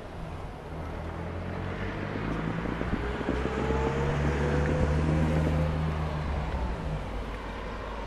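Wind on the microphone over a motor vehicle's engine hum; the hum swells to a peak about halfway through and then fades again.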